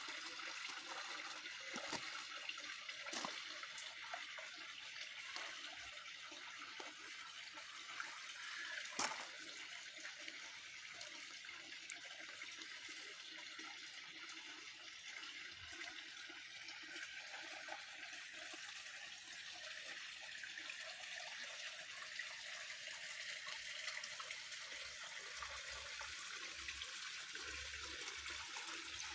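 Small garden-pond waterfall splashing steadily into the pond, with a few faint clicks early on the way.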